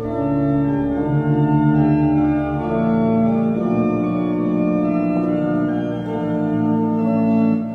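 Organ music: slow, sustained chords that shift every second or so, with no drums or voice, dropping away sharply near the end.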